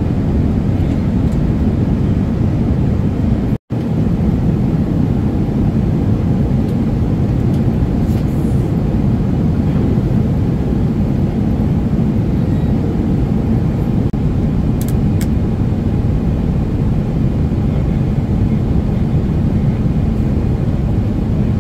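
Steady rumble of a jet airliner's cabin noise in cruise flight: engine and airflow noise heavy in the low end. The sound cuts out for an instant about three and a half seconds in.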